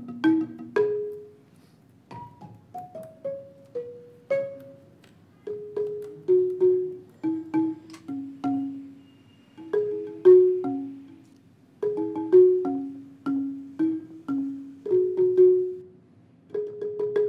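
Background music: a light, plinking melody of short struck notes that fade quickly, with a run of falling notes about two seconds in and short phrases separated by brief pauses.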